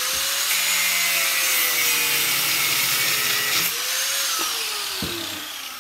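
Electric angle grinder running and cutting into the crimped metal end fitting of a BBQ gas hose, with a harsh grinding hiss over its motor whine for about three seconds and a second short cut after it. Near the end the grinder is switched off and its whine falls as it winds down.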